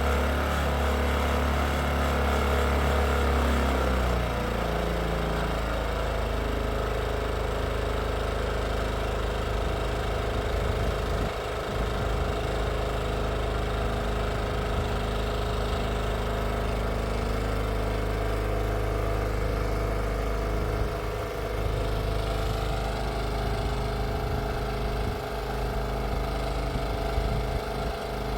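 A motor or engine running steadily, its low hum dropping in pitch about four seconds in.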